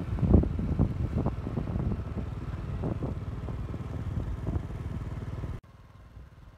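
Motorcycle engine running at road speed, with wind buffeting the microphone in gusts. About five and a half seconds in the sound drops abruptly to a faint low rumble.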